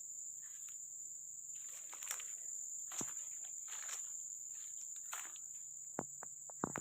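Steady, high-pitched insect chirring in the background, with footsteps rustling through undergrowth and a couple of sharp clicks near the end.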